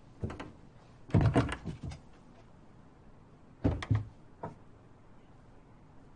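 A door being opened: a faint click, then a run of loud knocks and rattles about a second in, and another cluster of knocks a little past the middle.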